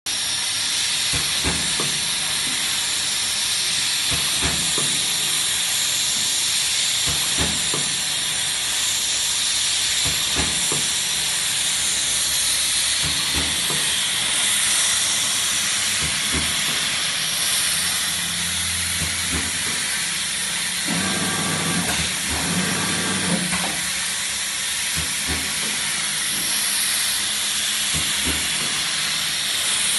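Automatic empanada/turnover forming line running: a steady machine hiss with a light knock every second or two as the forming and cutting head works the dough, and a short hum about three-quarters of the way through.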